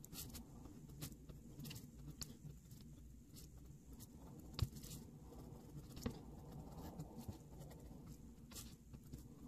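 X-Acto craft knife blade cutting through sticker paper on a plastic cutting board: faint scratchy ticks and scrapes, with one sharper knock about four and a half seconds in.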